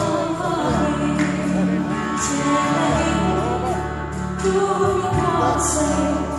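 A man singing into a microphone over instrumental accompaniment, amplified through a PA loudspeaker.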